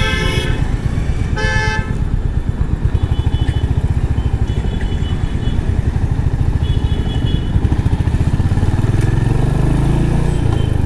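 Royal Enfield Hunter 350's 349 cc single-cylinder engine running at low revs in slow traffic, picking up revs about eight seconds in. Other vehicles' horns honk twice in the first two seconds, then toot faintly a few more times.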